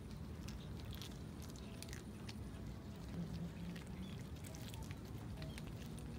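Cats chewing raw fish, many small, irregular wet clicks and smacks over a steady low background rumble.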